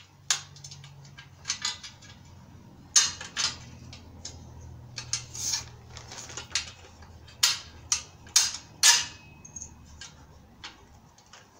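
Metal grill-assembly hardware (bolts and steel legs or braces) clinking and knocking as it is handled, about a dozen sharp, irregularly spaced clinks.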